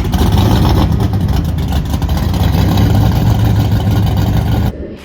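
Drag racing car engine running very loud, with a deep steady note. It cuts off abruptly near the end.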